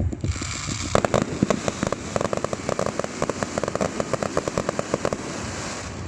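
Fireworks crackling: a dense run of rapid pops over a hiss, starting about a third of a second in and cutting off near the end.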